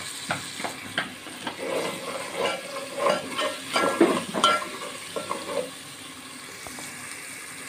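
Metal ladle stirring peas frying in oil in a metal pot, with irregular scraping and clinking against the pot over a sizzle. The stirring stops about three quarters of the way through, leaving a quieter steady sizzle.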